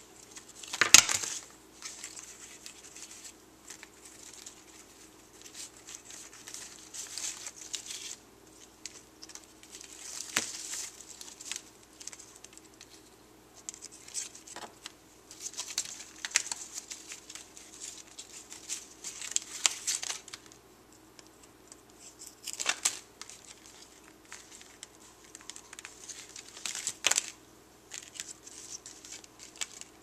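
African grey parrot tearing and chewing a cardboard playing-card box and pushing playing cards about with its beak: on-and-off bursts of crinkling, tearing and card rustle with sharp clicks, the loudest snap about a second in.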